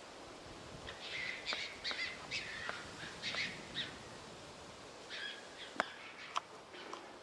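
A bird calling in a run of short, harsh calls for about three seconds, then a few more about five seconds in, with a couple of sharp clicks near the end.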